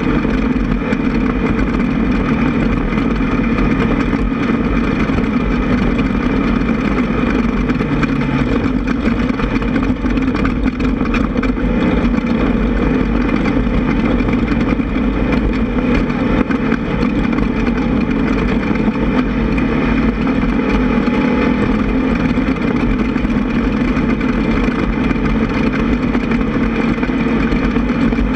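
Air-cooled VW 1600 flat-four engine of an off-road race buggy running hard, loud and steady.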